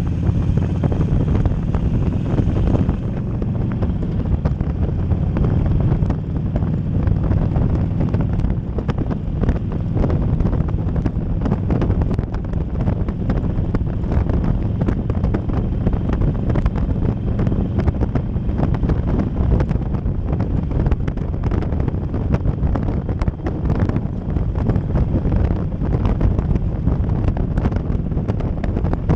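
Wind buffeting the microphone on a moving motorcycle, over the low running of a 2009 Harley-Davidson XLC Sportster's air-cooled V-twin engine. The engine's note is plainest for the first few seconds, and the wind rush takes over from about three seconds in.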